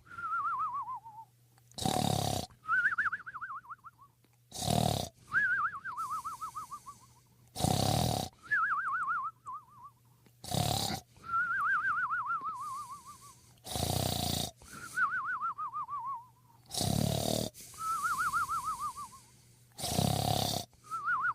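Comic snore-and-whistle sound effect repeating about every three seconds: a harsh, loud snore followed by a wavering whistle that falls in pitch.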